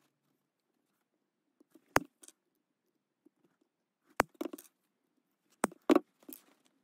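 Diagonal side cutters snipping through a coil of brass wire to part it into rings: four sharp snips, about two seconds in, about four seconds in, and twice in quick succession near the end. Each snip is followed by lighter clinks of the brass rings.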